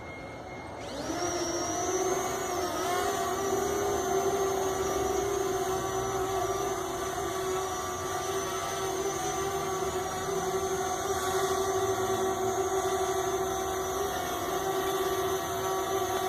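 Quadcopter drone's electric motors and propellers spinning up about a second in, then running with a steady whine.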